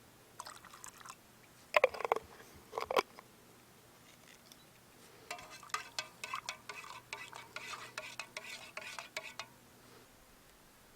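Camp cookware being handled while making coffee: a few sharp metal knocks about two and three seconds in, then several seconds of rapid clinking, like a spoon stirring in a metal cup.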